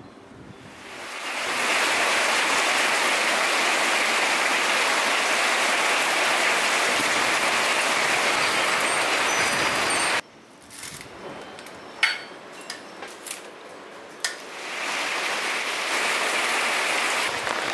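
Steady hiss of heavy rain that cuts off abruptly about ten seconds in. A quieter stretch with a few sharp ticks follows, then the rain fades back in near the end.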